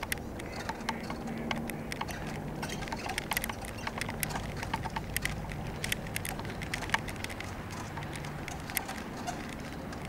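A vehicle rolling over a paving-stone street: a steady low rumble with many irregular small clicks and rattles.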